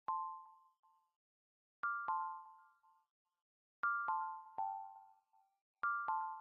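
Background music: a sparse tune of short bell-like notes that ring out and fade, coming in groups about every two seconds, first one note, then two, then three.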